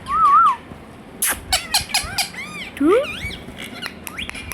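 Indian ringneck parakeet whistling and chirping: a loud wavering whistle at the start, then a run of sharp clicks and chirps with arching and rising whistled notes about a second and a half to three seconds in.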